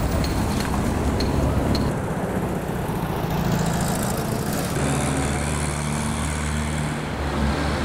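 Street traffic: a steady low vehicle engine hum with road noise, shifting in character about two and five seconds in, and a few light high ticks in the first two seconds.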